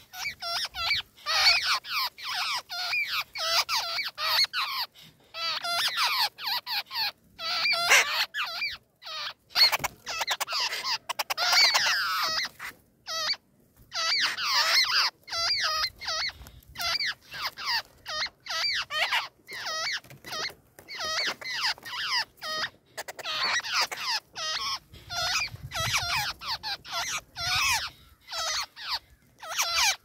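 Nestling birds begging in the nest: a dense, rapid stream of short, high squeaky chattering calls with only brief pauses.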